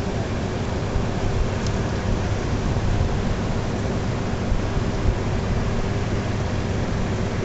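Steady background noise of an airport apron at an airliner's gate: a continuous even rush with a low machine hum underneath.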